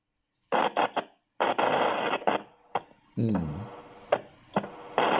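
Choppy video-call audio: bursts of crackly noise and sharp clicks, cut off like telephone sound, with a brief fragment of a voice about three seconds in. The internet connection is lagging and breaking up, so the remote guest cannot hear the host.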